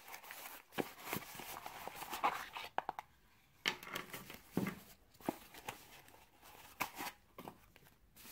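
Unboxing by hand: tissue paper crinkling and rustling as it is pulled out of a cardboard box, with scattered clicks and taps from the box flaps and a coiled cable being set on a wooden table.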